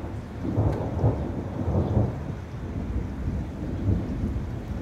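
Thunder rolling in a long low rumble that swells and eases several times, with rain falling.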